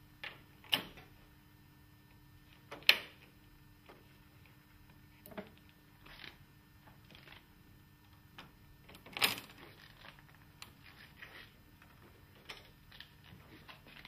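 Metal ROTO NT tilt-and-turn window fittings clicking and knocking against the window sash as they are handled and pushed into place: a few sharp clicks, the loudest about three seconds in and again about nine seconds in, with lighter taps between, over a faint steady hum.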